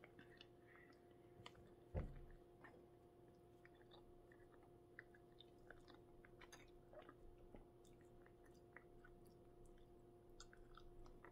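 Faint chewing and biting of a person eating pizza, with small scattered mouth clicks and one soft thump about two seconds in. A low steady hum runs underneath.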